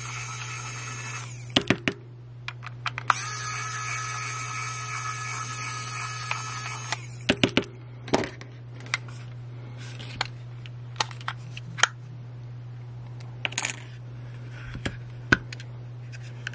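Cordless electric precision screwdriver (Wowstick) whining steadily as it backs screws out of an aluminium power bank's end cap, in two runs: a short one at the start and a longer one of about four seconds. After the motor stops, a scatter of sharp clicks and taps as the loosened screws and the metal case are handled.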